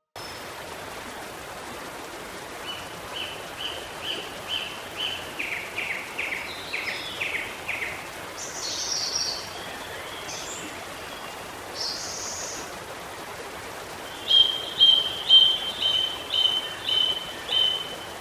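Birds chirping over a steady rush of running water. A series of evenly spaced chirps is followed by a few higher calls, and a louder run of quick chirps comes near the end.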